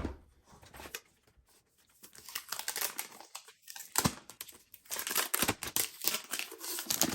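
Packaging being handled during an unboxing: crinkling and tearing of wrapping with scattered taps and knocks, sparse at first and busier from about two seconds in.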